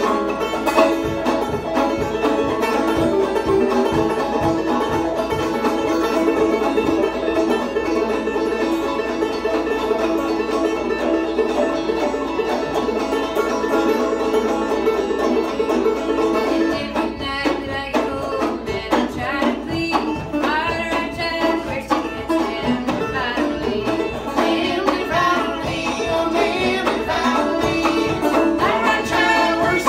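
Two clawhammer banjos playing an old-time tune together, a steady stream of bright plucked notes.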